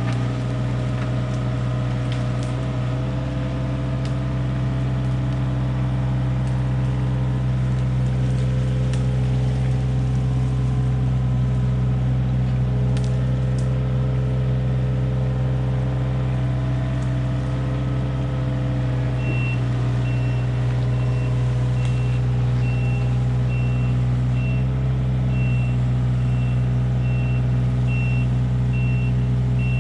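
Hitachi mini excavator's diesel engine running steadily. About two-thirds of the way through, its travel alarm starts beeping about once a second, the sign that the machine is tracking.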